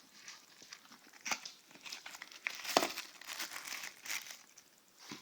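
Plastic packaging crinkling and rustling as it is handled, with irregular crackles and a sharper snap near the middle.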